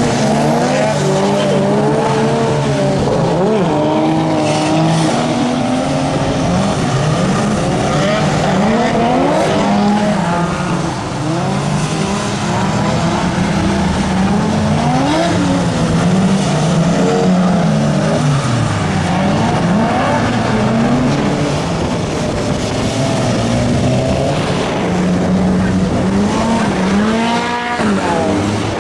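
Several car engines revving up and falling back over and over, their pitches overlapping, with tyre squeal, as cars are driven hard around a track.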